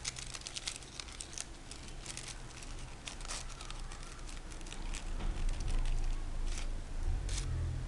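Crepe paper crinkling and crackling as it is wrapped and pinched by hand around the base of a paper rose. The crackles are dense for the first few seconds and then thin out. A low rumble builds in the second half.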